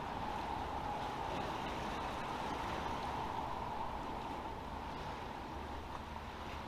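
Steady outdoor background noise: a low rumble with a faint steady hum, easing slightly toward the end.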